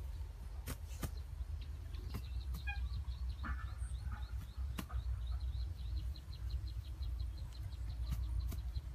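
Outdoor ambience over a low rumble: a high chirping call repeated rapidly, about five times a second, starting a couple of seconds in, with a few scattered lower chirps and some sharp clicks.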